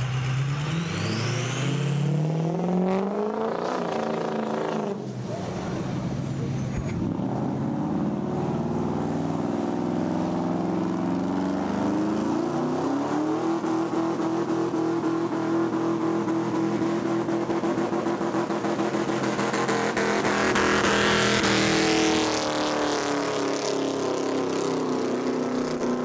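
Lifted pickup truck's engine revving, climbing over the first few seconds, dropping briefly, then rising again and held at high revs for a long stretch before easing off near the end, as in a burnout.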